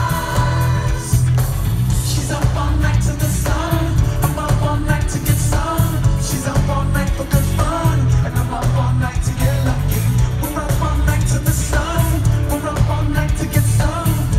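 Live band with a male lead singer, loud through a stadium PA and picked up from the crowd on a phone, with heavy bass and a steady drum beat.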